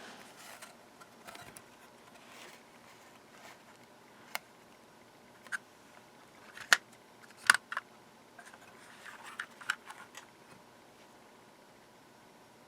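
A handful of sharp light clicks and taps from small tools being handled at an electronics workbench while a fine wire strand is set in place for soldering, spaced irregularly with a small cluster near the end.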